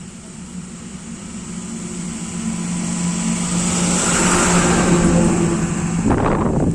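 A motor vehicle passing, its engine and road noise swelling to a peak about two-thirds of the way in, over a steady low hum. Near the end a short, loud rush of noise.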